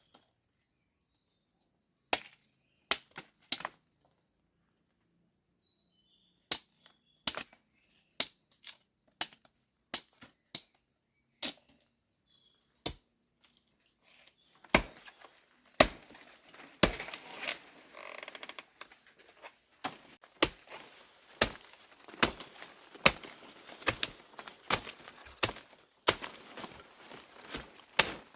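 A series of sharp knocks or strikes, spaced irregularly about a second apart at first, then coming faster and busier with a rustling haze from about halfway. A faint steady high tone runs under the first half.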